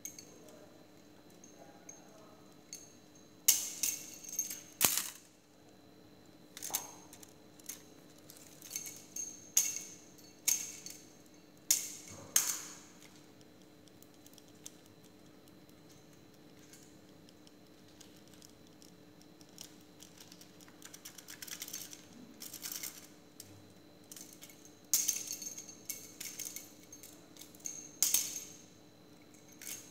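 Small jingle bell on a feather wand cat toy jingling in irregular short bursts, with light clicks as the toy is flicked about and batted by a cat on a hard tile floor.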